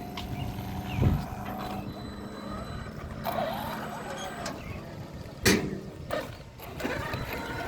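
Electric RC trucks driving, their motors giving a steady whine. Two sharp knocks come about a second in and about five and a half seconds in.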